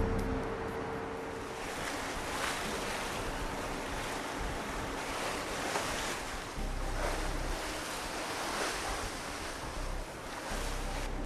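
Strong wind over open sea, rushing and buffeting the microphone, with waves washing and swelling every second or two.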